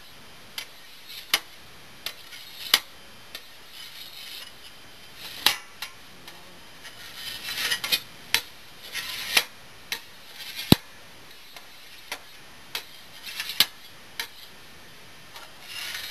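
Knife blade clicking and scraping against a stainless steel tray while slicing set gelatin into cubes: sharp, irregular metal-on-metal ticks, with a few short scrapes.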